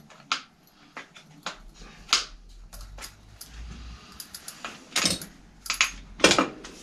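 Irregular small metallic clicks and ticks of the freewheel parts and loose ball bearings of a Woom 2 children's bike rear hub being fitted together by hand, with a few louder clicks near the end.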